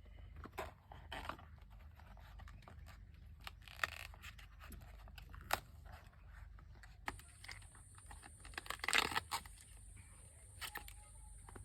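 Irregular tearing, scraping and crunching handling sounds with scattered sharp clicks, loudest in a cluster about nine seconds in. A faint, steady high whine comes in about seven seconds in.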